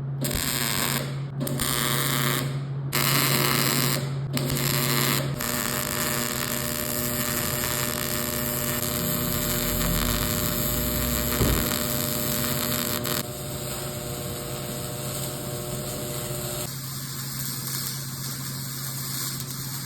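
A small motor running with a steady hum. It is broken by a few brief cuts in the first five seconds, and its tone changes twice later on.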